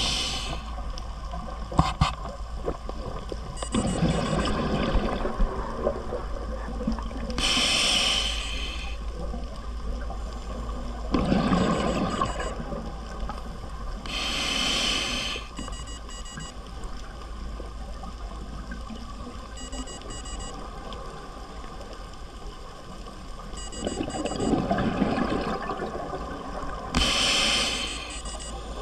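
Scuba diver breathing through a regulator, heard underwater: three breaths, each a bubbling exhale followed a few seconds later by a short hissing inhale, over a steady low hum.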